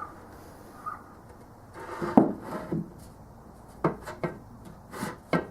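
Pieces of wood being handled on a workbench: a few separate sharp knocks as boards are set down or bumped, with some rubbing in between.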